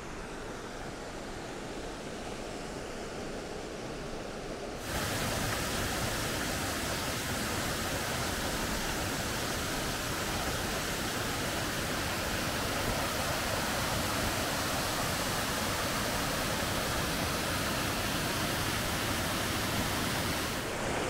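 Steady rushing of a mountain stream pouring down rocky cascades, softer at first and then suddenly louder and brighter about five seconds in as the view switches to the falls themselves.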